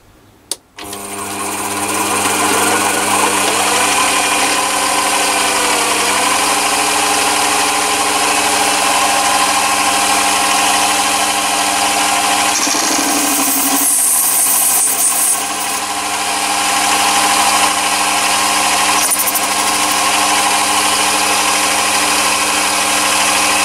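Chinese mini lathe switched on about half a second in with a click, spinning up and then running steady with a whine. The ball-turning attachment's cutter takes light cuts on the spinning bar, with a higher hiss partway through.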